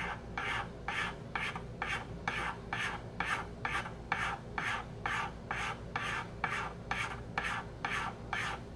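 Small flat hand file rasping across the rim of a briar pipe bowl in even strokes, about two a second, topping and levelling the lightly charred rim.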